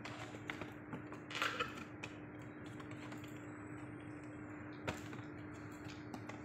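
Stiff cardboard board-book pages turned and books handled: scattered light clicks and taps, a brushing rustle about a second and a half in and a sharp tap near five seconds, over a steady hum.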